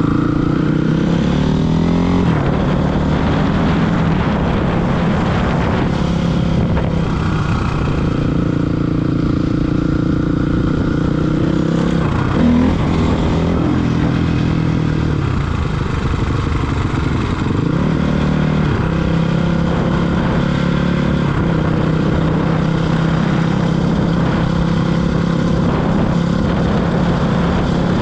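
Honda CRF450R's single-cylinder four-stroke engine running as the bike is ridden, its pitch rising and falling several times with throttle and gear changes.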